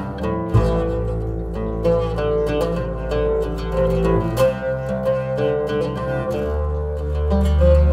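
Oud plucked in quick runs of notes over a bowed double bass holding long low notes, which change pitch a few times.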